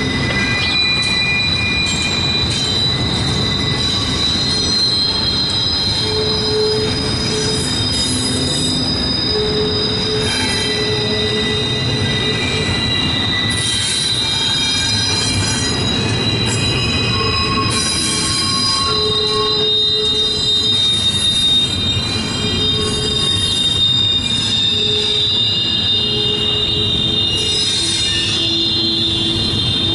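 Double-stack intermodal freight cars rolling past, steel wheels squealing against the rails in several high, shifting pitches over a steady low rumble of wheels on track: flange squeal as the train curves off the wye onto the main track.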